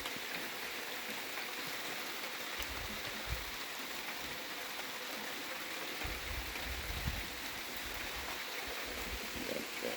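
Steady rain falling, an even hiss with scattered faint drop ticks. Low rumbles come in briefly about three seconds in and again around six to seven seconds.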